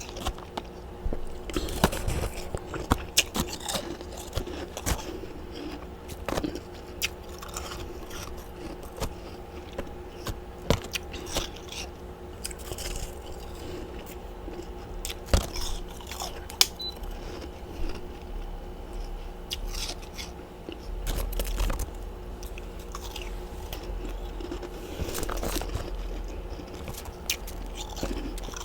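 Close-up crunching and chewing of freezer frost, with irregular sharp crackles over a faint steady hum.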